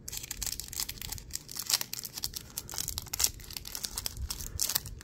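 Crinkly packaging around a trading card being torn open and handled, with a run of irregular crackles and rustles.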